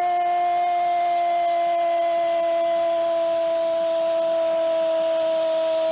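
A football commentator's long drawn-out goal cry, one unbroken held note that sinks slightly in pitch, over crowd noise.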